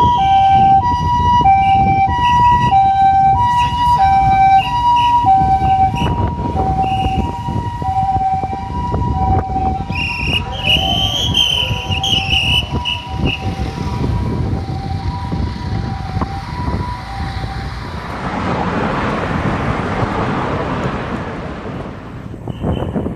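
Japanese ambulance siren sounding its two-note hi-lo call, alternating between a higher and a lower tone about once a second, stopping about 18 seconds in. A louder rush of traffic noise follows near the end.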